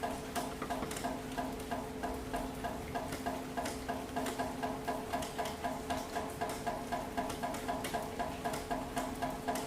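Rain falling, with a steady low hum under it and a regular tapping about three times a second.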